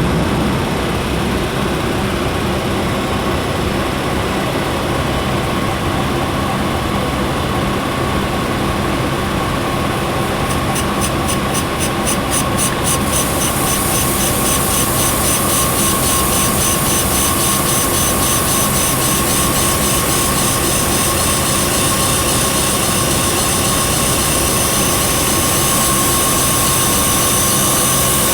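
3K12 cylindrical grinding machine running, a steady hum with a whine. About ten seconds in a high hiss sets in, pulsing about five times a second at first, then steady.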